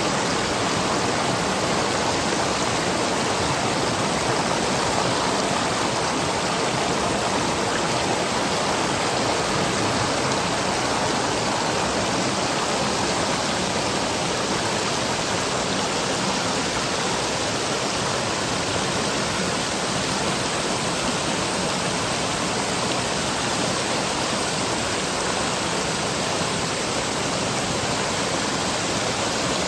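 Mountain valley stream rushing over rocks, a loud, steady rush of water.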